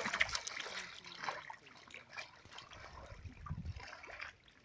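Many small fish flapping and thrashing in shallow muddy water: a dense, irregular patter of small splashes and trickling, with a louder splash right at the start and another about three and a half seconds in, dying down near the end.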